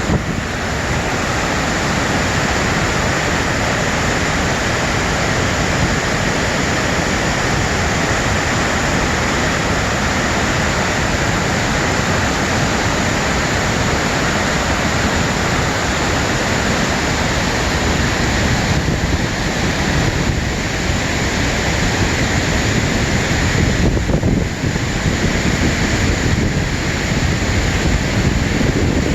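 Waterfall on the Una river: a loud, steady rush of falling water.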